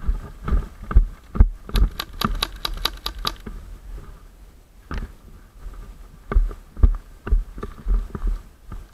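Rapid string of about eight sharp pops from a Tokyo Marui MK23 SOCOM gas airsoft pistol, fired about five times a second. Dull thumps of running footsteps on dry brush come about twice a second before and after.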